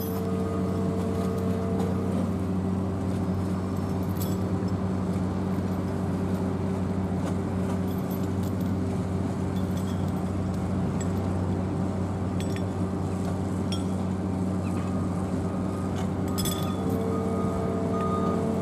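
Steady low drone of running engines and machinery, with a few light metallic clinks and knocks scattered through it.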